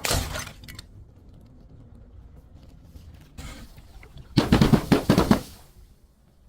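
Brittle material being smashed and crushed: a crackling crunch at the very start, then a second, louder burst of rapid crunching and cracking about four and a half seconds in, lasting about a second.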